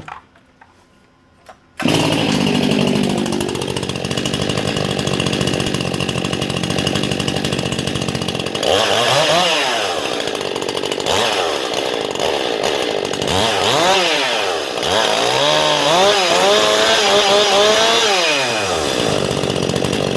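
Stihl MS 261 C-M two-stroke chainsaw with an aftermarket buckshot test muffler, starting up about two seconds in and running steadily. From about halfway it is revved up and down again and again, showing off the muffler's exhaust note.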